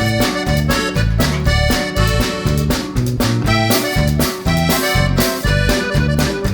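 Background music with a steady beat and a bright, reedy melody line.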